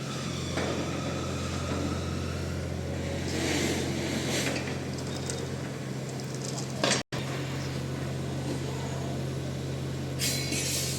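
Engine of heavy construction equipment running steadily, with a brief loud noise and a sudden break about seven seconds in, and a short hiss near the end.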